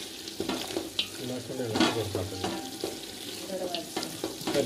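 Wooden spatula stirring and scraping chicken masala around a metal pot, with a few separate scraping strokes over the sizzle of the frying masala.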